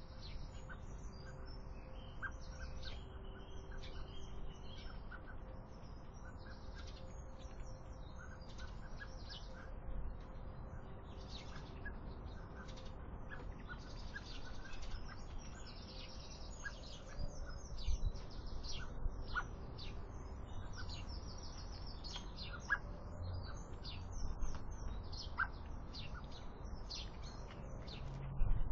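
Many small birds chirping and singing at once in a dawn chorus, with a few low thumps near the end.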